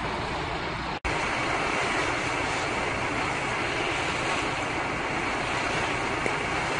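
Steady hiss of a firefighter's hose jet spraying water onto a burnt-out car wreck. It starts after a brief dropout about a second in, replacing outdoor street noise.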